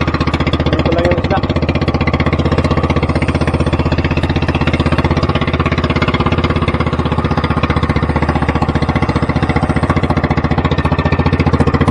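A motorised outrigger boat's (bangka) engine runs steadily while trolling, a fast, even pulse that holds the same speed throughout.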